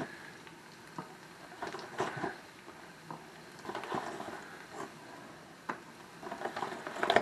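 Frozen pierogies dropped a few at a time into a pot of boiling water: a series of small plops and splashes with light handling knocks, coming unevenly about every second, busiest near the end.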